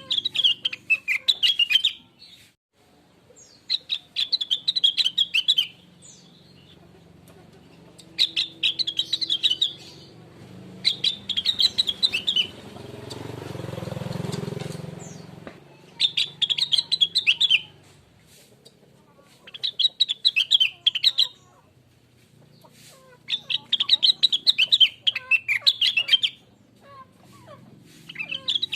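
Rengganis (cucak wilis), a leafbird, singing in repeated bouts of quick, varied chirping phrases, each about two seconds long with short pauses between. A low rushing noise swells and fades midway.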